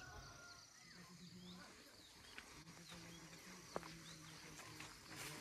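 Faint, scattered bird chirps over quiet rural background, with a single sharp tap a little before four seconds in.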